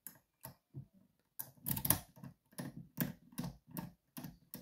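Key being inserted into and turned in a Schlage Primus lock cylinder: a series of short clicks and rattles as the pin tumblers ride over the key's cuts, sparse at first and then two or three a second.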